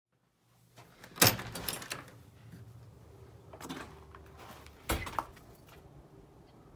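A few irregular clunks and knocks with short rustling after them. The loudest comes about a second in, and a sharp pair follows near the end.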